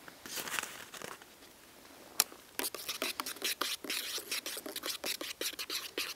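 A spoon stirring coffee in a metal camping mug, with quick clinks and scrapes against the mug's sides several times a second from about two and a half seconds in. Before that there is a short rustle near the start and one sharp click.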